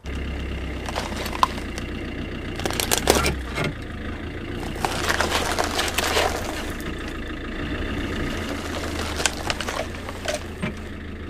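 Iveco Daily van's engine running at a steady low idle, with bursts of crunching and cracking, three times, as the front tyre creeps slowly over gravel toward an aluminium LED work light.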